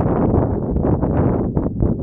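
Wind buffeting the microphone: a loud, fluttering low rumble.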